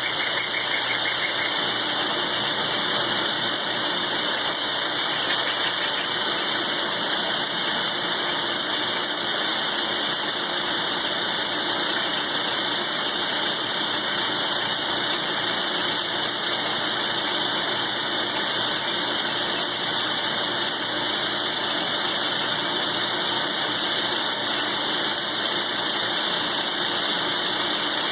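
Large milling machine cutting thick steel with a roughing end mill, running steadily with a high-pitched cutting noise.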